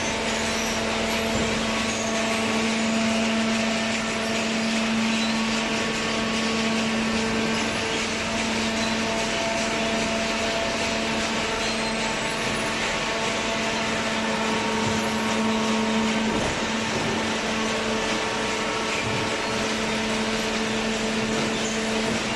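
Carton baler running: a steady machine hum and hiss with a held low whine. The whine breaks off briefly about two-thirds of the way through, then resumes.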